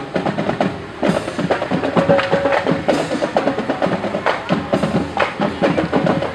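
Marching band drumline playing a fast, driving street cadence on snare and marching bass drums, with sharp clicking accents; the drumming picks up strongly about a second in.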